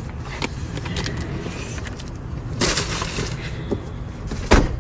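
A car's rear passenger door slamming shut near the end, one solid thump, after a brief rustle of a shopping bag being put on the back seat, over a steady low outdoor rumble.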